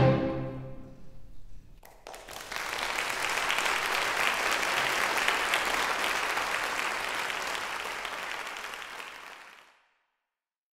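A string orchestra's final chord, cut off sharply and ringing briefly in the hall. About two seconds in, an audience breaks into steady applause that fades out near the end.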